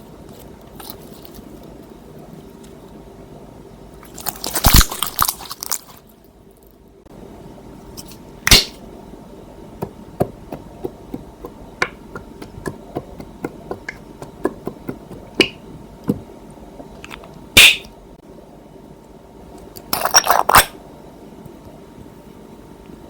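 Slime being worked by hand: a run of small sticky clicks and pops, with a few louder crackling squelches, the loudest near the start and again near the end.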